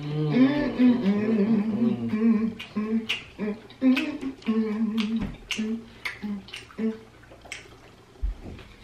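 A man humming a tune with his mouth closed while chewing, with sharp wet clicks and smacks from his mouth over it. The humming is loudest in the first couple of seconds and dies away near the end.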